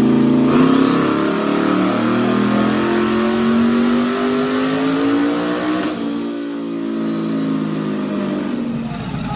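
Turbocharged truck engine making a full-throttle pull on a chassis dyno, revs climbing steadily with a turbo whistle rising over it, then lifting off about six seconds in and winding down. A clean pull at 8 psi of boost, with no breakup now that the boost is lowered so the ignition keeps up.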